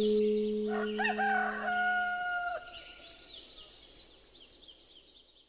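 A rooster crows once, starting about a second in, over a steady low ringing tone that dies away. High bird chirps follow as the sound fades out near the end.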